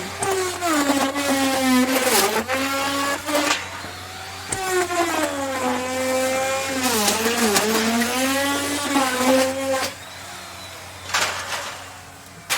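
Electric wood router running and cutting into wood in a series of passes: its motor whine sags in pitch as the bit takes load and climbs back as it frees, with bursts of harsh cutting noise. About ten seconds in it drops quieter, with one more short cutting burst near the end.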